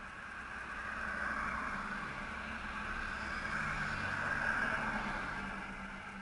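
Motor vehicles driving past on the road, a car and a motorcycle, with engine and tyre noise. The sound swells and fades twice.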